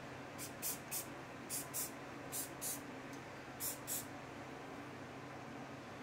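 Aerosol can of Stick Fast CA glue activator sprayed in short puffs, about nine quick hisses mostly in pairs over four seconds, instantly curing the cyanoacrylate glue that holds the jig blocks.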